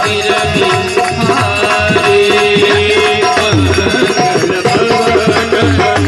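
Harmonium holding steady reed notes over a dholak beating a quick hand-drum rhythm: devotional folk accompaniment.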